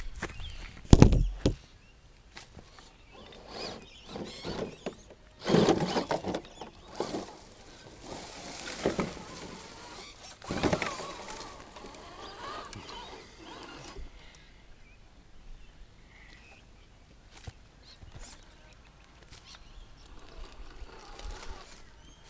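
Irregular knocks, scuffs and scrapes as a radio-controlled rock crawler clambers over rocks close to the microphone, with a heavy thump about a second in and busier clusters of scraping in the middle; the sounds thin out over the last several seconds.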